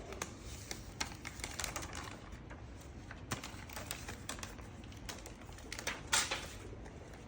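Backing paper being peeled off a vinyl decal: irregular crackling ticks as the adhesive lets go, with a louder rustle of paper about six seconds in.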